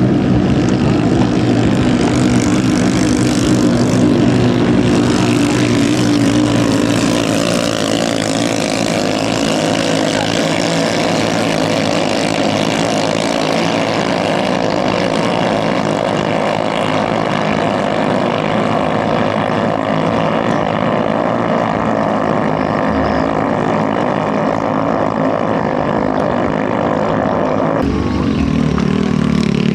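Racing ketinting longtail boats' small 6–7 horsepower engines running flat out at high revs, a loud steady engine note. The note shifts abruptly near the end.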